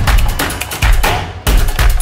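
Hype-style background music with a heavy, steady kick-drum beat; just past a second in the high end drops out briefly, then the full beat hits back in.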